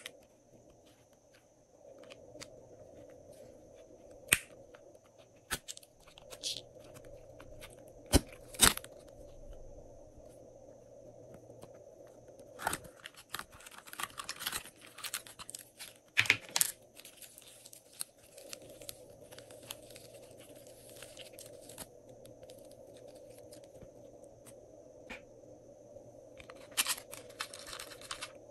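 Glossy slime being worked by hand: scattered sticky clicks and pops, with stretches of dense crackling and tearing as it is stretched and pressed, over a faint steady hum.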